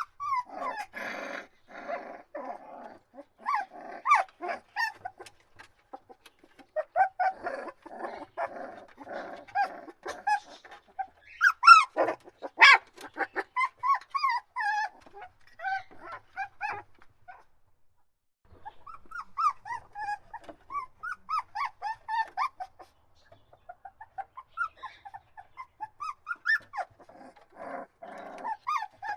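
Puppies whining and crying in short, rising and falling squeals, with stretches of rougher, noisier grumbling. There is one loud yelp about twelve seconds in and a brief lull a few seconds later.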